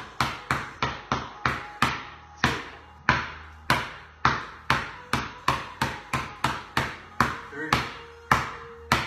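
A basketball being dribbled on a concrete garage floor: a steady run of sharp bounces, about three a second, each ringing briefly off the bare walls.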